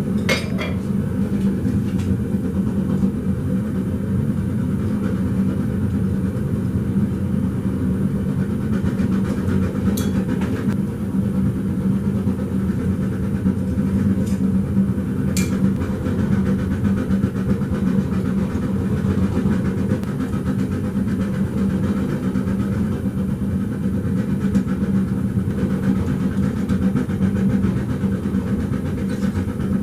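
A forge running with a steady, deep, even roar, heating thin carbon steel for curling. A few sharp clicks stand out over it now and then.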